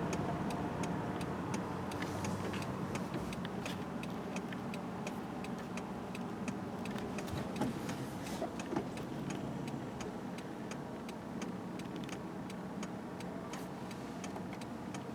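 A steady low hum with a fast, regular ticking, a few ticks a second, running over it.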